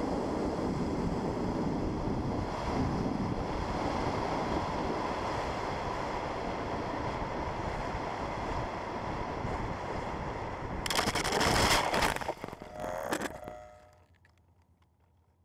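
Steady rush of wind over an FPV model aircraft's onboard microphone as it glides low with its motor off. About eleven seconds in comes a loud crashing and crackling as it ploughs into tall grass, then the sound dies away to near silence.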